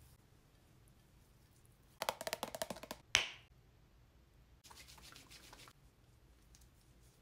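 A plastic La Roche-Posay cleanser bottle being handled: a rapid run of taps for about a second, then a single sharp snap as its flip-top cap opens. A little later comes a brief, softer squish of the gel cleanser being dispensed.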